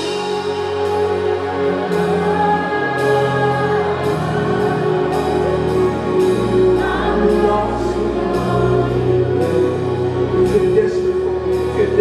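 Live gospel music: sustained chords and bass under voices singing held notes, with a light steady beat ticking along.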